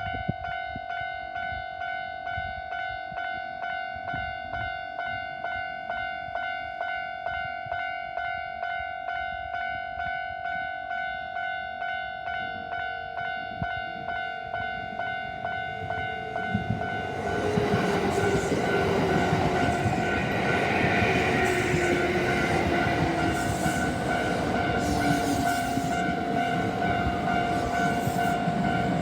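Japanese level-crossing alarm bell ringing at about one and a half strokes a second. From about 17 seconds in, a Kintetsu 2600-series electric train passes over the crossing, its wheel and running noise rising over the bell, with a slowly falling whine and wheels clacking over rail joints near the end.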